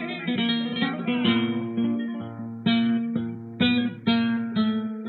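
Flamenco guitar playing alone between sung lines of a zambra, sounding about half a dozen sharp strummed chords that ring and fade.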